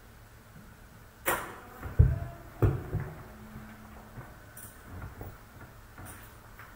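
A sharp click, then a few heavy low thuds about two seconds in, the first the loudest; later, darts being pulled out of a Winmau Blade 6 bristle dartboard give a few lighter clicks.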